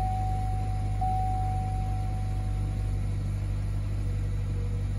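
Cadillac XT5's 3.6-litre V6 idling, freshly started with the push button: a steady low hum heard from inside the cabin. A thin high tone fades out about three seconds in.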